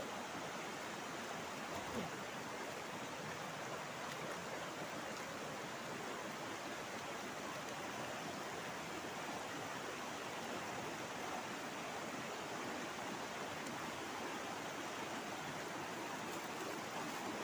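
Shallow rocky river running fast over stones and riffles: a steady rush of water.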